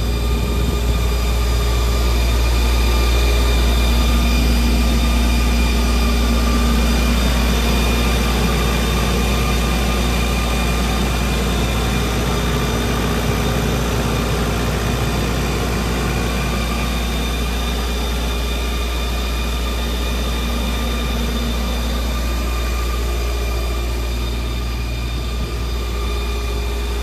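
Multiquip Whisperwatt DCA-40SSKU diesel generator running steadily at its governed 1800 rpm, its Kubota V3300 four-cylinder diesel making a deep, constant hum with steady higher tones over it.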